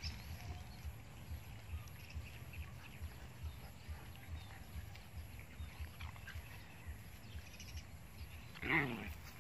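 Puppies play-fighting, mostly faint with low scuffling thumps, then one short yelping cry from a puppy whose pitch drops, near the end.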